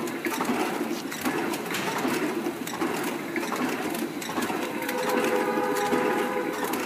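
Automatic play dough flow-wrapping machine running, with a steady, rhythmic mechanical clatter as it wraps and seals the clay portions. A held tone sounds for about a second and a half near the end.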